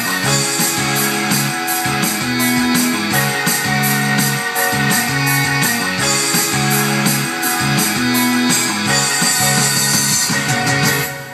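Karaoke backing track playing the song's instrumental rock ending with guitar over a steady beat, fading out near the end.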